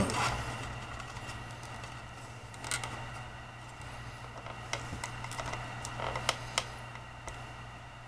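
Light handling noise: a short scrape and then a scatter of small clicks and taps as a plastic webcam is held and pressed against a cedar board, over a steady low hum.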